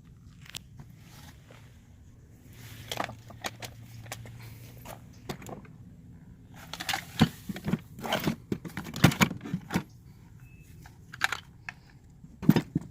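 Tools and gear being packed back into a Milwaukee Packout plastic tool box: irregular clattering and knocking of items set down and shifted, busiest in the middle, with a sharp knock near the end.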